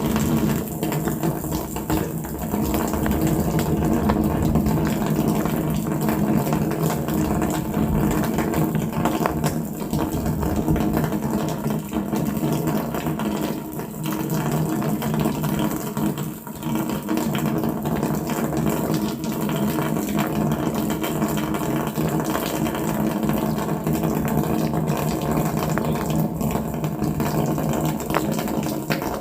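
Waterfall: water pouring and splashing in a steady, loud, unbroken rush, heaviest in the low tones.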